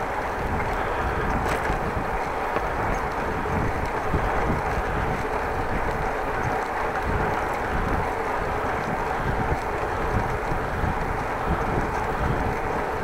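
Steady wind noise on an action camera's microphone from riding a bicycle fast.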